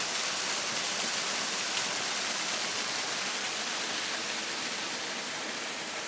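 Shallow stream running over stones and a small cascade: a steady rush of water that eases slightly toward the end.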